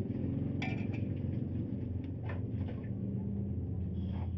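A steady low hum, with a few brief clinks and knocks as cookware is handled on a gas stove, the sharpest about a second in.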